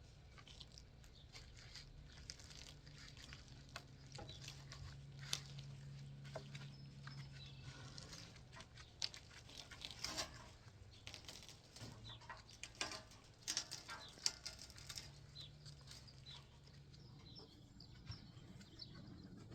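Faint, scattered clicks and knocks of a log being positioned and clamped on a homemade sawmill bed with its log dogs and log stops, over a low steady hum.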